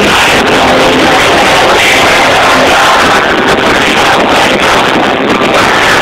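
Live hard rock band playing loud with electric guitar, recorded on a mobile phone.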